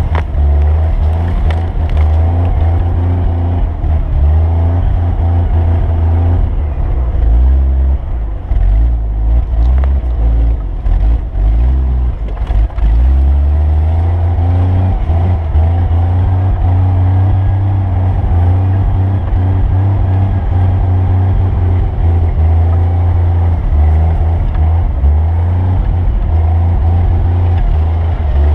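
Vehicle engine running and revving, its pitch rising and falling again and again, under a heavy low rumble.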